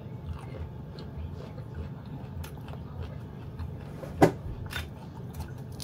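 A person chewing a mouthful of okra, with small mouth clicks over a steady low hum. A sharp knock about four seconds in is the loudest sound, followed by a couple of lighter clicks.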